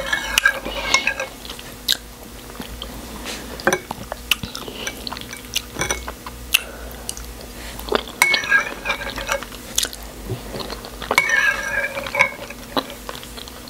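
Close-up eating sounds: a metal spoon clicking and scraping against bowls of pap and beans, with chewing and wet mouth sounds between the clicks.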